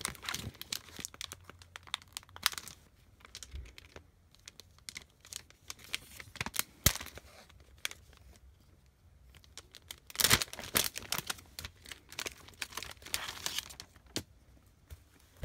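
Clear plastic film wrapping being peeled off and crinkled by hand: irregular spells of crackling with quieter gaps between them and a few sharp snaps.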